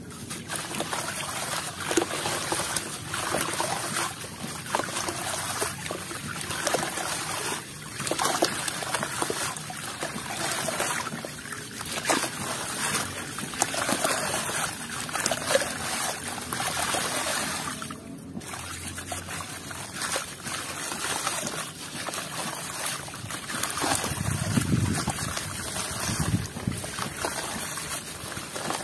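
A dry, sandy block crumbling in the hands into a basin of water: gritty crunching with sand pouring and trickling into the water, and splashing. Near the end the soaked lumps are squeezed under the water, giving wet squishing.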